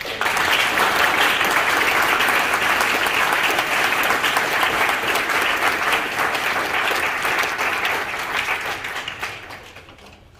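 Audience applauding, starting all at once and holding steady, then dying away over the last two seconds.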